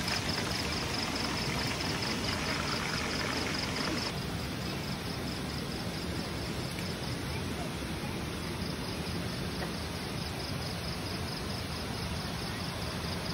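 Crickets chirping in a fast, even pulsing trill over a steady background hiss.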